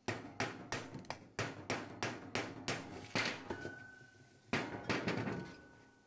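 Repeated hammer blows knocking a chilled inner mold out of a fresh aluminium casting: sharp knocks about three a second, then a couple of heavier single strikes with a faint steady tone lingering after them.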